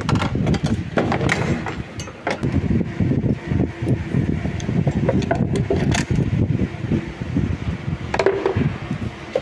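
Irregular plastic knocks, taps and rattles from a car headlight assembly being handled and pressed into place in the front of the car, with a sharper knock about six seconds in and a short squeaky scrape near the end.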